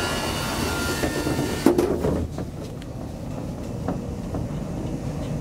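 1972 Kone Asea Graham inclined elevator: a steady whine, then a sharp clunk a little under two seconds in, after which the drive motor runs with a low steady hum as the car travels along the incline, with occasional faint clicks.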